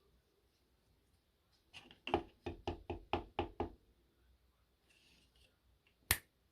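A quick run of about eight hard knocks, some four a second, then a single sharp click near the end.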